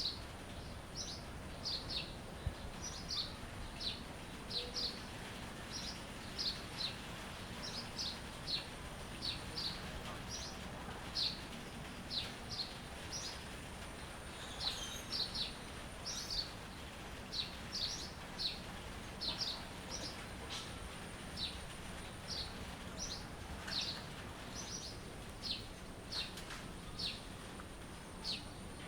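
Birds chirping: short, high chirps repeating about twice a second, over a steady background hiss.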